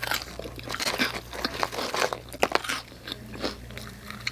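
Chewing and crunching a mouthful of pizza topped with hot Cheetos, a rapid run of crisp crunches that thins out near the end.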